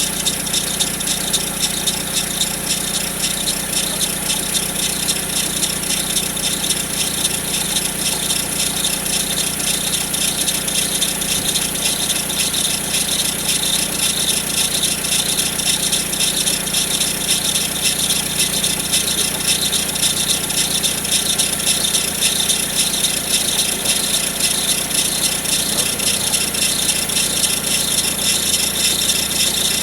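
Peugeot 407 engine running cold with a fast, steady rattle over its hum. The owner hears this noise only on a cold engine, since the timing belt was changed, and says it goes away after 2–3 minutes.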